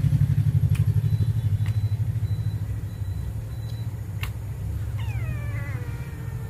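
A low, fast-pulsing engine-like rumble runs throughout and eases off after about three seconds, with a few sharp clicks of plastic toys being handled. About five seconds in, a long falling wail with several overtones starts and then holds steady.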